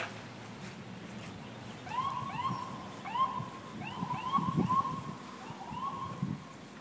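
Electronic alarms sounding: short rising whoops that level off, repeating irregularly and sometimes overlapping, with a few soft low knocks underneath.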